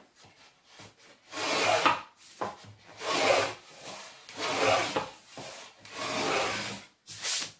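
Wooden marking gauge cutter dragged along the edge of a board, scoring a deep line for a rabbet: five scraping strokes about one and a half seconds apart, the last one short.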